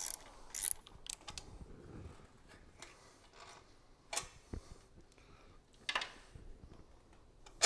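Socket wrench ratchet clicking and metal tools knocking lightly as a nut is backed off the engine-mount bolt. The clicks come scattered and irregular, with a cluster in the first second and a sharper click right at the end.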